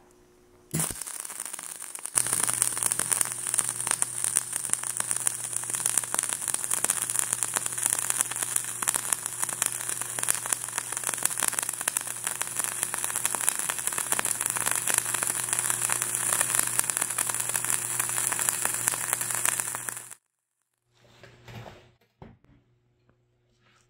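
Gas-shielded flux-cored (dual shield) wire-feed welding arc running the top pass of a multi-pass horizontal fillet weld: a steady dense crackle and sizzle over a low hum. It starts about a second in, settles about two seconds in, and cuts off suddenly near the end, followed by a few faint knocks.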